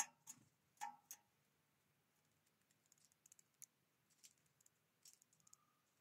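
Light clicks and taps from a great tit landing and pecking at seeds on a feeding tray: a few sharp clicks in the first second, then sparse faint ticks.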